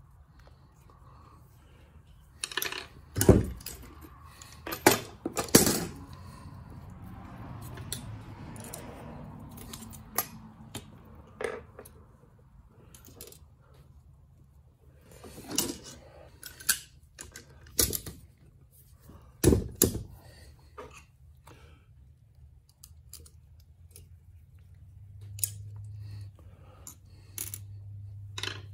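Metal tools and valve parts clinking and knocking on a Case 188D diesel cylinder head as a valve spring compressor is worked and springs, retainers and keepers are taken off and set down on a steel bench: a dozen or so sharp clicks at uneven intervals, the loudest a few seconds in and again about two-thirds of the way through. A low hum comes in near the end.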